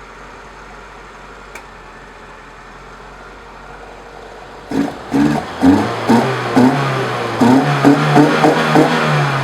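A four-cylinder engine idling quietly, then about halfway in loud guitar music comes in, with plucked notes about every half second over a steady bass line.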